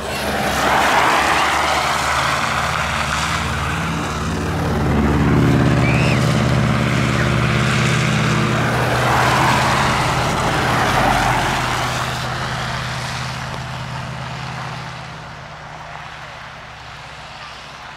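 Road vehicles driving past on a snowy road, engines running and tyres hissing through slush. The sound swells twice as vehicles go by and then fades away.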